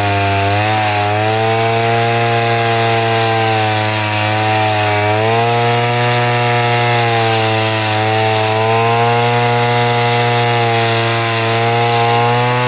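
Chainsaw running steadily at high revs while cutting a coconut palm log into lumber, its engine pitch dipping briefly a few times as the chain loads in the wood.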